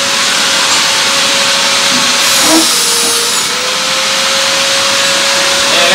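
Steady workshop machine noise: a loud, even hiss with a constant hum whose pitch dips briefly about two and a half seconds in, and a sharper high hiss that comes in for about a second around then.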